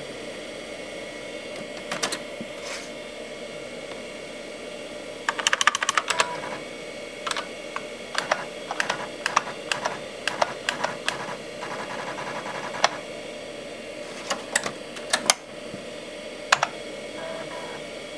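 Osborne 486 computer running with a steady hum. About five seconds in there is a rapid cluster of sharp clicks, followed by irregular single clicks spaced up to a second or more apart.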